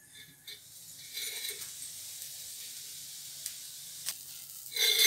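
Water left in a hot, empty aluminium kadai sizzling off as the pan heats, a steady hiss that sets in about a second in. A brief louder clatter comes near the end.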